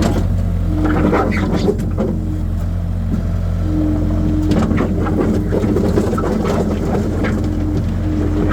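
Skid steer engine running steadily with a deep drone, a higher steady whine coming and going over it, and scattered clanks and scrapes about a second in and again around the middle.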